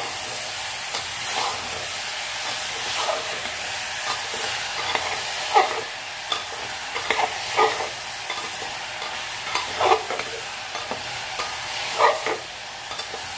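A steel ladle stirs gourd and chana dal frying in oil in an open aluminium pressure cooker. The steady sizzle of the frying runs under scrapes and clinks of the ladle against the pot every second or two, the loudest about ten and twelve seconds in.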